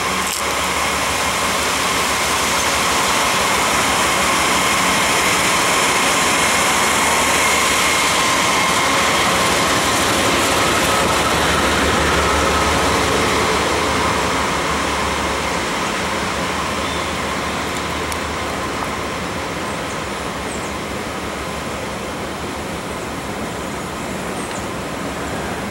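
Three Norfolk Southern GE diesel-electric locomotives, two D9-44CWs and an ES44DC, passing close by with their engines running, followed by covered hopper cars rolling by with steady wheel and rail noise. It is loudest during the first half, as the locomotives go by, and eases as the cars follow.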